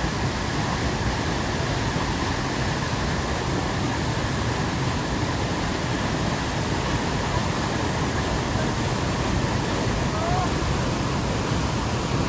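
Waterfall heard at close range: a steady, even rush of falling water that does not change.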